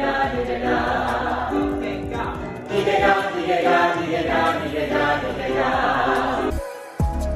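A group of musical-theatre performers singing a vocal warm-up together. The singing breaks off suddenly about six and a half seconds in.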